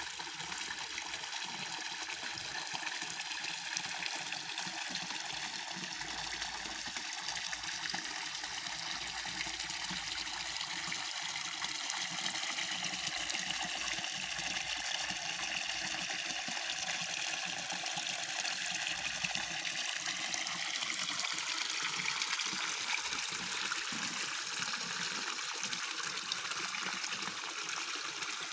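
Small garden-pond waterfall: water pouring steadily over a stone lip into the pond, a continuous trickling splash.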